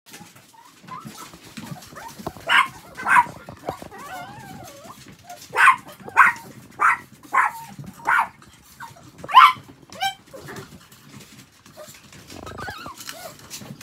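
Chihuahuas yapping: a run of short, sharp, high-pitched barks spaced about half a second to a second apart, with a wavering whine between them.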